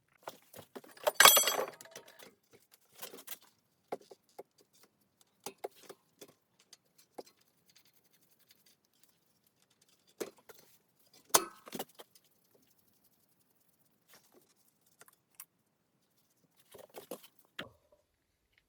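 Small hard metal parts and tools being handled, with scattered clicks, clinks and knocks. There is a louder clatter about a second in and another sharp knock near the middle.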